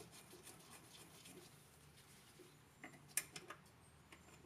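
Near silence with faint clicks of hand work on metal nuts at the switch terminals, and one sharper metallic click a little after three seconds in.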